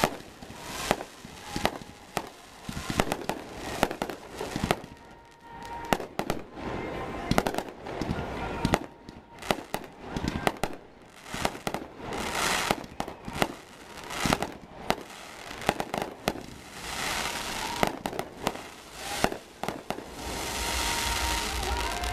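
Fireworks display: an irregular run of sharp bangs from aerial shells bursting, at times several a second, with stretches of steady hiss between them.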